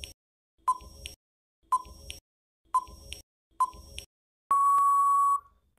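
Quiz countdown-timer sound effect: four short beeps about a second apart, then one long steady beep near the end, marking that the time to answer is up.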